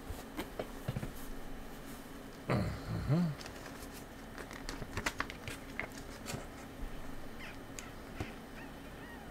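Plastic snack packets crinkling and tapping as they are handled and packed into a cardboard box, with scattered small clicks. About two and a half seconds in, a man's voice gives a short low hum.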